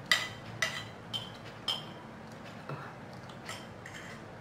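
Spoon clinking against a plate while eating: four sharp clinks about half a second apart, then a few fainter taps.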